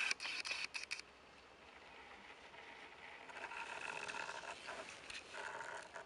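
A camera's lens motor whirring in two spells, a longer one around the middle and a short one near the end, with scraping handling noises in the first second.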